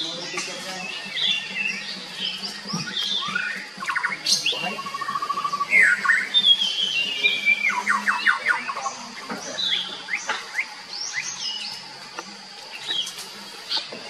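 Several songbirds singing and calling over one another: varied chirps, short gliding whistles and quick rattling trills, some harsh squawk-like notes, over a steady high-pitched tone.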